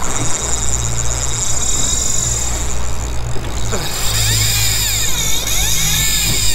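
A boat's engine running steadily at trolling speed, with water rushing along the hull.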